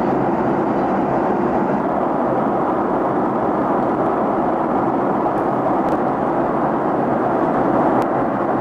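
Steady drone of an airliner in flight, heard from inside the cabin: engine and airflow noise that holds level throughout.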